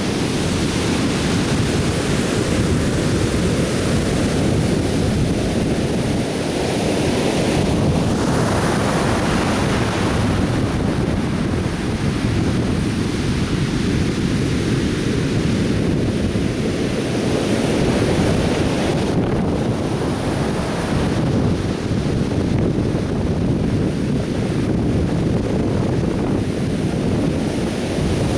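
Atlantic Ocean surf breaking on a beach: a continuous rushing wash of waves, with a wave breaking louder and brighter about eight seconds in.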